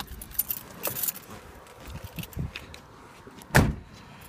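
Small clicks and knocks as a person climbs out of a 1995 Nissan Pathfinder, then the car door shut with a single loud thump about three and a half seconds in.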